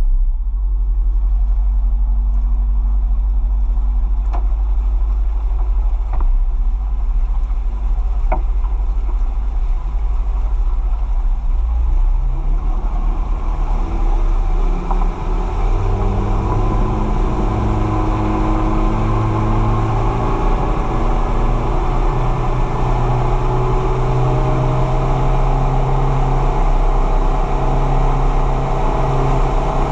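Boat engine running steadily, its revs climbing from about twelve seconds in, with a few faint knocks in the first several seconds.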